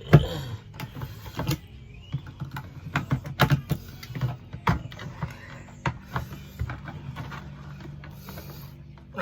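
A plastic water jug being cut open by hand: irregular clicks, knocks and scraping over a steady low hum.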